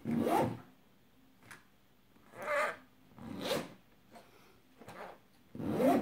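Backpack zipper pulled back and forth in quick strokes, about five short rasps spaced roughly a second apart, several of them rising in pitch.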